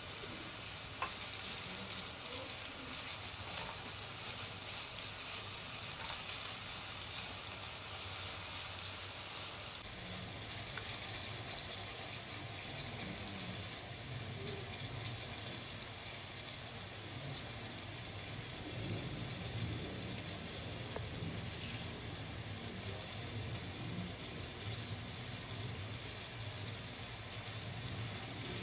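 Steady sizzling hiss of food frying in oil, louder for the first third, with faint soft scraping as a spoon tosses chicken pieces in starch.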